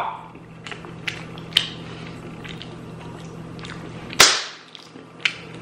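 A steady low hum with a few faint clicks, then one loud sharp crack about four seconds in that fades quickly, and a smaller click a second later.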